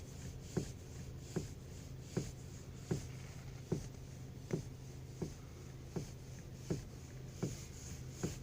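Knocking in a Škoda Rapid's steering: a short, sharp knock repeating evenly about every three-quarters of a second over a steady low hum. It is a steering knock that shows up when the car is cold.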